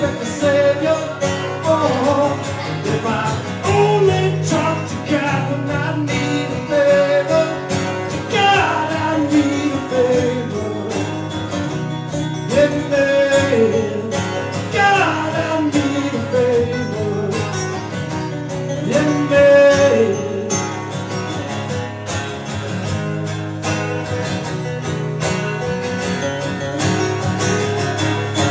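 Two acoustic guitars strummed together under a man's lead vocal in a live song. About two-thirds of the way through, the singing stops and the guitars play on alone.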